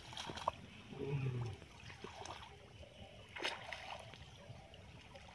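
Faint, irregular splashing and sloshing of shallow water as people wade through a pond dragging a seine net.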